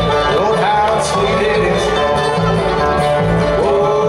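Live bluegrass band playing, with a five-string banjo and a flat-top acoustic guitar, over a steady rhythm. Several notes slide up into pitch, about half a second in and again near the end.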